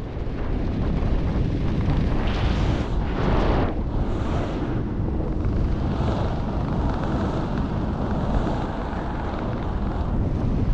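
Wind rushing and buffeting over a helmet-mounted camera microphone during a parachute descent under an open canopy, with louder gusts around two to four seconds in.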